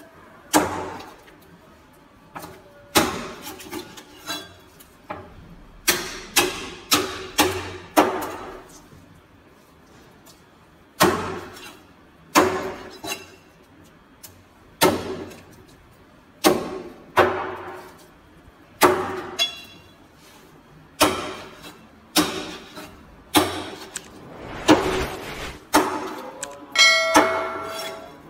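Large knife chopping golden trevally into chunks on a thick plastic cutting board: sharp chops every second or two, sometimes three or four in quick succession.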